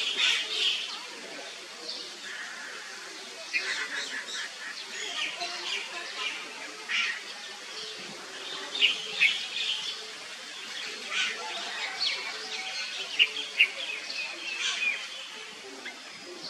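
Short, high-pitched chirping calls repeated irregularly, several to a second at times, over a steady outdoor background.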